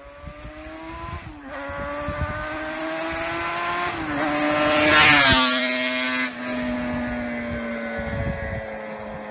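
Electric grinding tool running, its motor pitch sagging and recovering as it is worked against laser-cut steel brackets to sand off the laser ridges and deburr the edges, with a harsh grinding hiss loudest about five seconds in.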